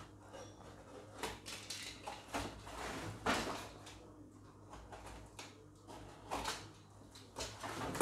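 Knife slitting the packing tape on a cardboard box, with the cardboard scraping and rustling as it is handled, in a series of short strokes, the loudest about three seconds in.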